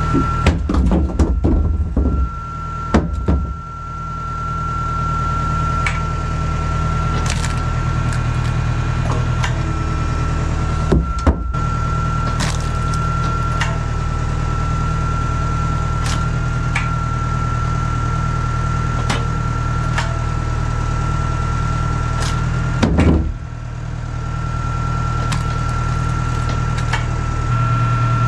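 Tractor engine running steadily to drive a hydraulic log splitter, with a steady high whine over it. Sharp cracks and knocks of logs being split and split pieces tossed into a steel bin come in a cluster at the start, again about a third of the way through, and once more past two-thirds.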